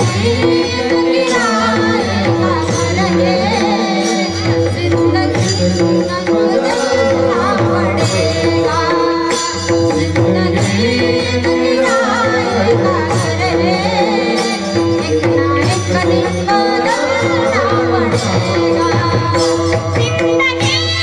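Music from a devotional Hindi song: a voice sings the word 'zindagi' at the start, and a melodic line goes on over a steady held drone tone and a regular percussion beat.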